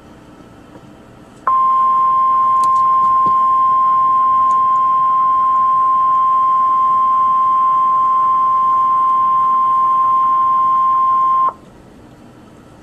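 NOAA Weather Radio's 1050 Hz warning alarm tone: one steady high tone lasting about ten seconds, starting about a second and a half in and cutting off suddenly. It is the signal that an urgent warning message, here a tornado warning, follows. Faint radio hiss is heard before and after it.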